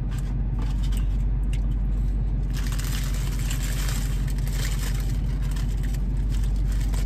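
Steady low hum of a car idling, heard from inside the cabin, with faint crunching of food being chewed close by.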